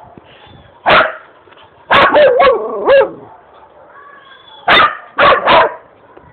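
A dog barking in three bouts: a single bark, then a quick run of about four, then three more.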